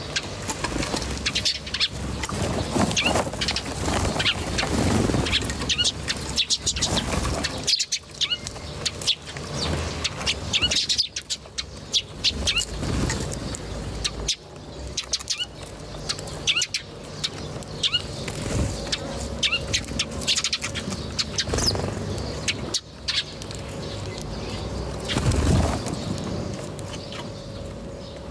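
Small birds chirping in short, high, repeated notes, with irregular bursts of wing flapping and rustling underneath.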